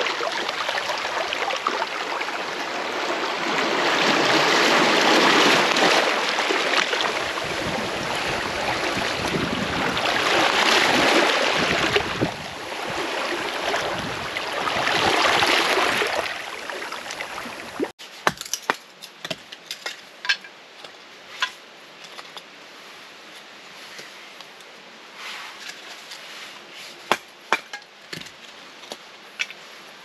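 A loud rushing noise that swells and eases several times, then stops abruptly. It is followed by scattered sharp knocks and cracks of wood being struck and split with a blade.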